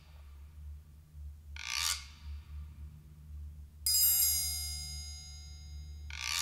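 A nickel coin of a Curie heat engine spinning on its wire axle, giving short rasping swishes about two seconds in and again at the end. About four seconds in a bright metallic chime rings out and fades, over a steady low hum.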